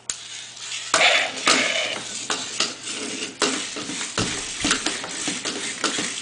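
Roboreptile robot toy moving on a wooden floor: irregular plastic clicks and knocks, a clattery rattle from its legs and gears.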